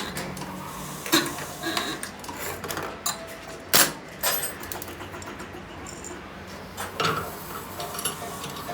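Metal tools and small parts clinking and tapping against each other during work on a diesel injection pump, with a sharp knock a little before four seconds in.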